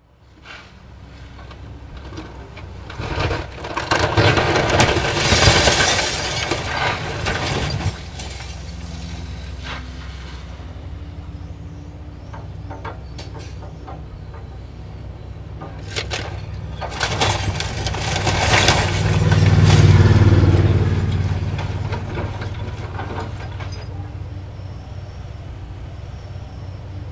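Hydraulic excavator demolishing a wood-frame house: its diesel engine runs steadily while the roof and walls break apart and crash down. Two loud spells of splintering and falling debris come a few seconds in and again about two-thirds of the way through.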